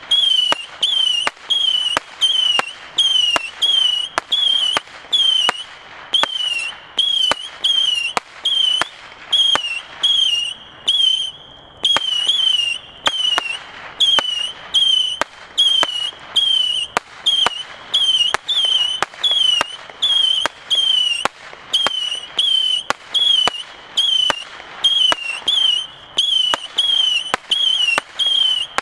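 A Saturn-missile firework battery (8 mm, 100 shots) firing whistling missiles in a fast, steady series. Each shot is a sharp pop followed by a short high whistle that wavers and dips in pitch, coming more than once a second.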